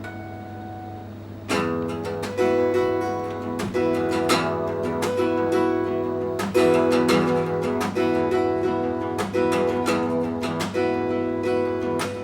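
Acoustic guitar playing a song's introduction: soft held notes at first, then steady rhythmic chord strumming that comes in about a second and a half in. A low steady hum runs underneath.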